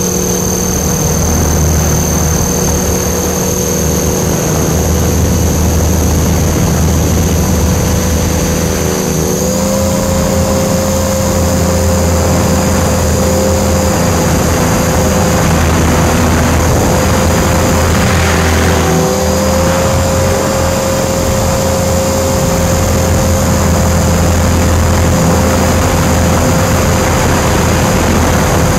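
Align T-Rex 500 electric RC helicopter heard from its onboard camera: the motor and rotor run with a steady whine over rushing noise. The whine steps up slightly in pitch about ten seconds in and then holds.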